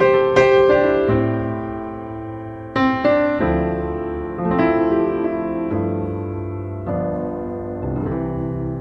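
Background music: a slow piano piece, chords struck and left to ring out, a new chord every second or two.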